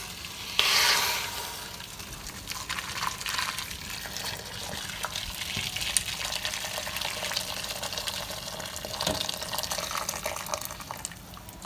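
Hot water poured from a stainless-steel kettle into a stainless-steel stockpot, a steady splashing pour that is loudest as it starts about half a second in and fades out near the end.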